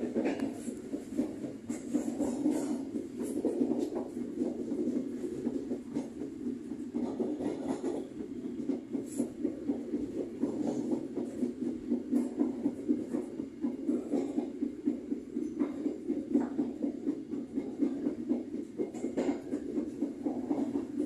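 Passenger train running along the track, heard from the rear of the last carriage: a steady rumble of wheels on rails with a quick, uneven pulsing and scattered clicks.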